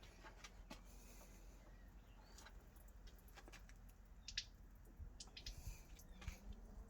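Near silence, with a few faint scattered clicks and brief high chirps.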